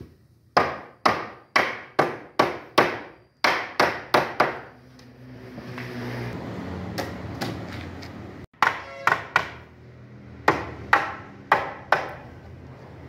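Claw hammer striking the wooden rails of a panel door frame, about two sharp blows a second, knocking the frame's joints together during assembly. The blows come in two runs, with a steady background noise between them.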